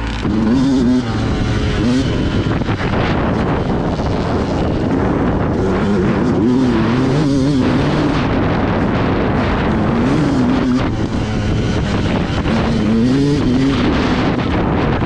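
Dirt bike engine on a trail ride, its revs rising and falling again and again as the throttle is worked, over a steady rush of noise.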